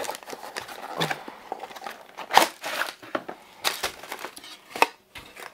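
Cardboard boxes and plastic packaging of diamond-painting kits rustling, crinkling and scraping as they are handled, in irregular strokes with a few louder rustles.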